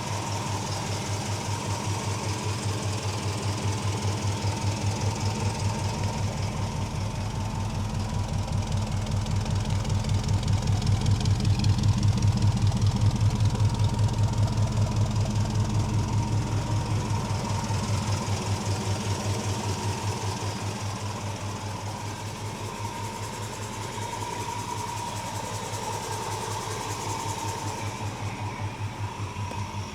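1965 Ford Mustang GT's 289 V8 with four-barrel carburettor idling with an even, pulsing exhaust beat. It gets louder toward the middle and eases back later, with no revving.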